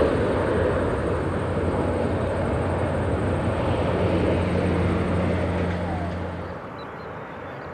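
Cathay Pacific Airbus A340 climbing out after takeoff, its four jet engines giving a steady rumble that slowly fades as it departs. About six and a half seconds in, the sound drops abruptly to a quieter, more distant rumble.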